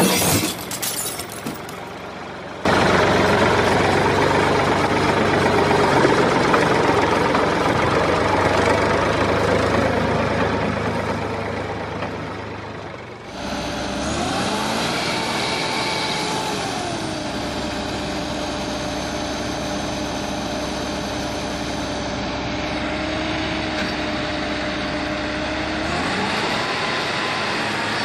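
Engine sound: a rough, noisy rumble for about ten seconds, then a sudden change to a steadier engine hum whose pitch climbs, drops back to a steady idle, and climbs again near the end as it revs.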